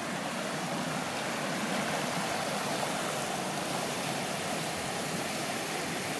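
A river rushing steadily, the continuous noise of fast water running over its bed.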